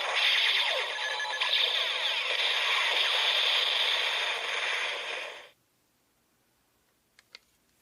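Electronic sound effect from a Kamen Rider Zero-One Shining Hopper toy: a dense, busy synthesized jingle that cuts off abruptly about five and a half seconds in. Two faint clicks follow near the end.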